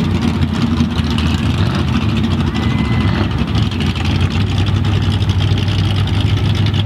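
Off-road mud truck's engine running steadily with a deep, even note.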